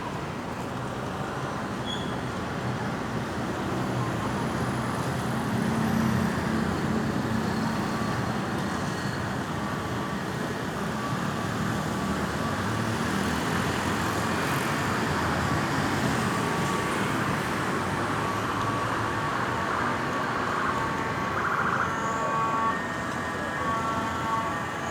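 Road traffic with an emergency vehicle's electronic siren coming through, heard as short repeated steady tones that grow clearer over the second half.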